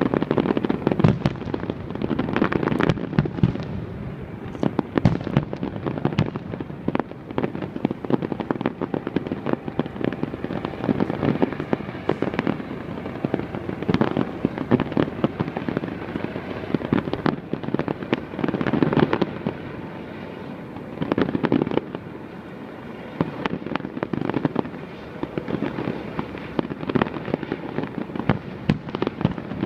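Fireworks display: many bangs and crackles in quick succession, with louder clusters every few seconds.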